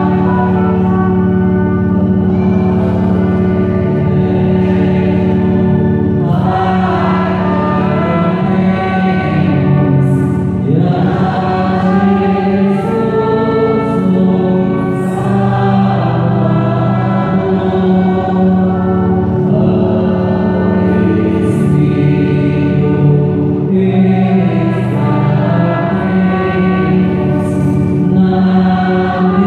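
A hymn sung by voices, accompanied by electronic keyboard and trumpet, with sustained chords changing every few seconds.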